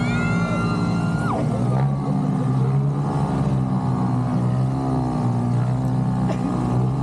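Small engine of a motorised bumper boat running steadily, its pitch wavering slightly as the boat turns. A high held tone sounds over it in the first second or so.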